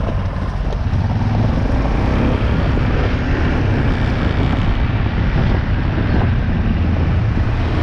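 Off-road vehicle driving at speed, a steady engine drone under heavy low rumble from wind on the microphone.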